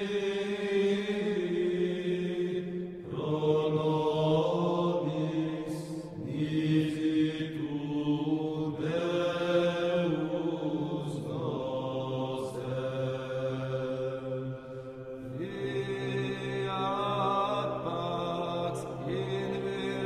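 Slow chant-like vocal music: voices holding long notes in layers, the pitch shifting to a new note every few seconds.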